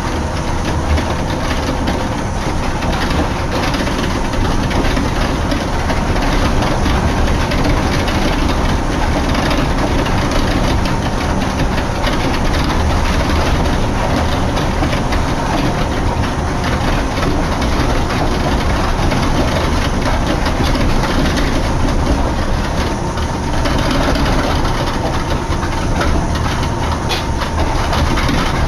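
Cabin noise inside a Yamaman Yukarigaoka Line car, a rubber-tyred people mover, running between stations: a steady rumble and hiss with a faint, even whine.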